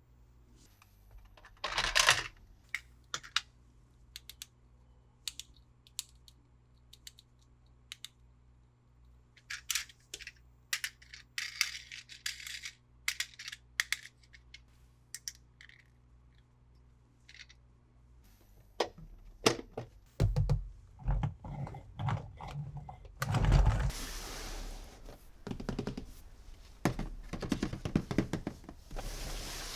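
Plastic toys and their packaging being handled: scattered clicks, taps and knocks of hard plastic, then a denser stretch of packaging crinkling and rustling about two-thirds of the way in.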